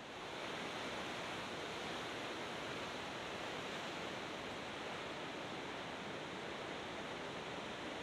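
Steady, even rush of large breaking ocean surf, with no distinct wave crashes standing out.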